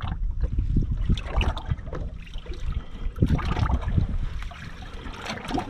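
Wind buffeting the microphone in an uneven low rumble, with small waves lapping and slapping irregularly against the boat's hull.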